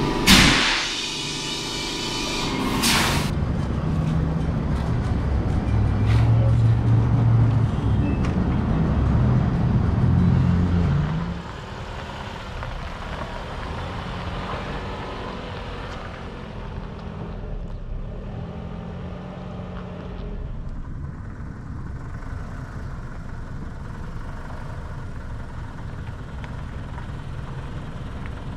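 A sudden loud hiss at the start, then a Toyota RAV4 engine working hard as the SUV climbs a steep dirt hill. About eleven seconds in the engine eases off to a quieter, steady running.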